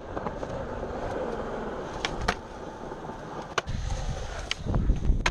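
Skateboard wheels rolling over concrete, a steady rolling noise broken by several sharp clacks about two to four and a half seconds in. Near the end a heavier low rumble comes in.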